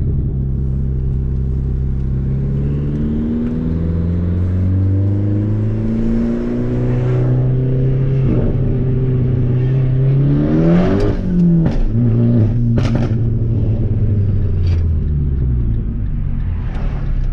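Fiat Abarth 500's turbocharged four-cylinder engine heard from inside the car while driving, its pitch climbing and dropping several times as the car is shifted through the gears. A quick rev up and down comes about two-thirds of the way through, with a few sharp clicks around it.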